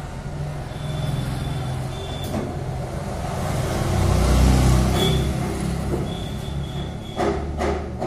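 A motor vehicle passing on the road, its engine rumble building to a peak about halfway through and then fading. Two sharp knocks near the end.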